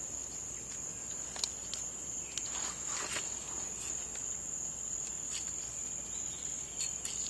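Rainforest insects keeping up a steady, high-pitched continuous drone, with scattered faint clicks and rustles.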